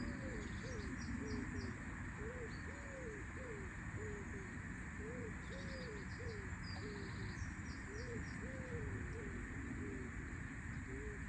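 A pigeon cooing in repeated phrases of about five low notes each, with a small songbird chirping faintly in between, over a steady outdoor hiss.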